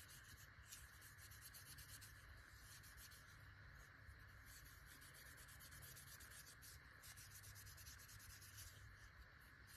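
Faint, rapid rubbing: Never Dull polishing wadding wiped back and forth over a small pocket knife to loosen corrosion, over a steady low hiss.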